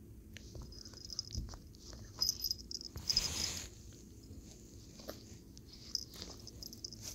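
Shih Tzu–Bichon Frise dog chewing on a rubber toy and wriggling on carpet: small clicks of teeth on the toy, repeated light jingling of its collar tag, and a brief rustle about three seconds in.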